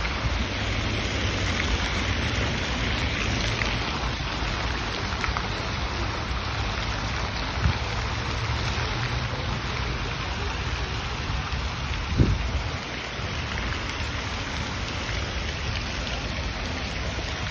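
Steady rushing rumble of wind on a phone's microphone while walking, with two brief thumps from the phone being handled, about eight seconds in and again about four seconds later.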